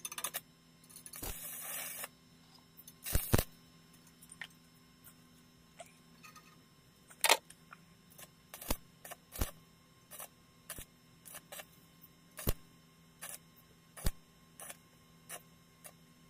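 Stick-welding electrode striking a sheet-steel box in short arc tacks: a brief crackling hiss about a second in, then a string of short, sharp crackles and clicks at irregular intervals.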